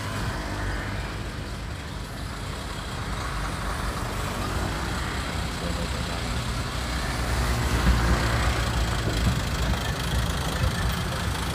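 Hino truck's diesel engine running, getting louder about seven to eight seconds in.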